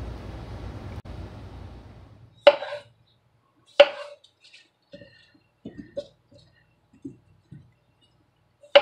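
Chef's knife chopping apples on an end-grain wooden cutting board: three sharp chops as the blade cuts through onto the board, with lighter knocks and taps between them as the pieces are handled. A steady hiss fades out in the first two seconds.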